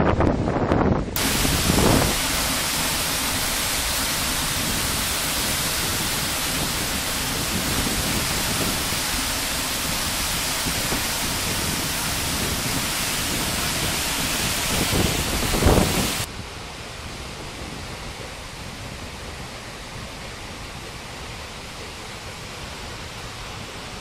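A waterfall's falling water heard up close, a steady, even rush with no rhythm. The first second is wind buffeting the microphone, and the rush turns quieter about sixteen seconds in.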